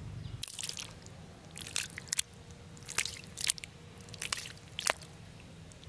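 Live fish in a heap of wet mud wriggling and flopping against each other. They make a run of short, irregular wet squelches and slaps.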